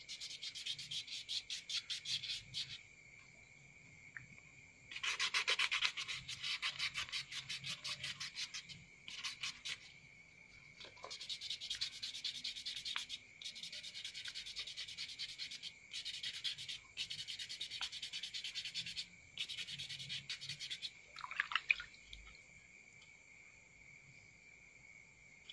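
Sheep-horn bracelet being hand-sanded with fine 1000-grit wet sandpaper in quick back-and-forth strokes: the fine-finishing stage. The strokes come in several runs with short pauses and stop about four seconds before the end.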